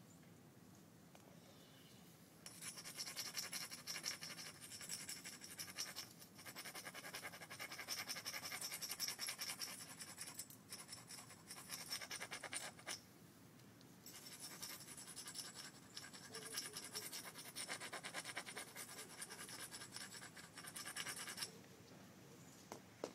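Rapid back-and-forth scratching of a tool rubbed along the edge of a piece of green sheen obsidian, abrading the edge while knapping it. It comes in two long spells: the first starts about two seconds in, the second follows a brief pause around the middle, and it stops shortly before the end.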